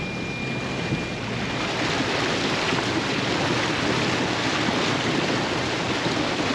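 Water rushing and splashing around a 4WD as it fords a shallow, rocky river. The rush grows louder about two seconds in.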